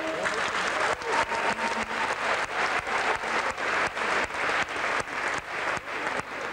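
Audience applauding, the clapping falling into an even beat of about three claps a second.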